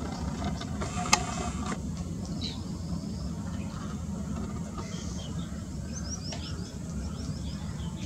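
A steady low background rumble, with a single sharp click about a second in. In the second half comes a quick run of about eight short, high, downward-sliding chirps: green bee-eaters calling.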